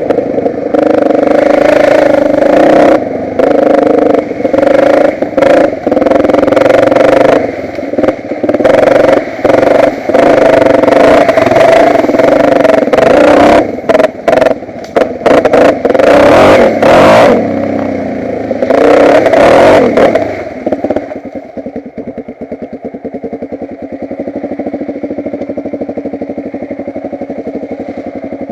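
Motocross motorcycle engine under hard riding, revving up and down with many brief throttle cuts. About twenty seconds in it drops to a steady idle.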